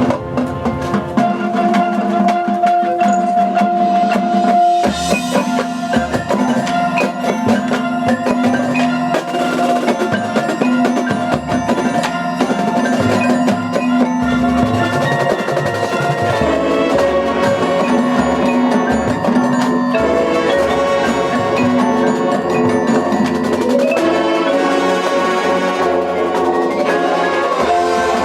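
High school marching band playing its field show: sustained wind chords over busy percussion, with mallet instruments such as marimba and glockenspiel ringing out.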